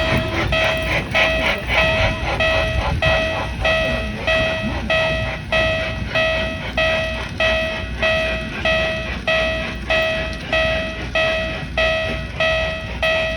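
Japanese railway level-crossing warning bell ringing steadily, an even ding about twice a second, over a low rumble.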